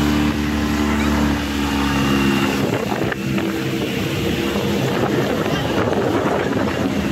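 A boat's motor running with a steady low hum; about two and a half seconds in, a broad rushing noise grows over it while the hum carries on underneath.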